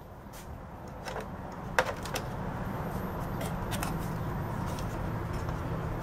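Light plastic clicks and knocks, about eight, as the unscrewed plastic hose cover of a Hoover upright vacuum is worked loose and lifted. Behind them is a steady low rumble that grows louder over the first couple of seconds.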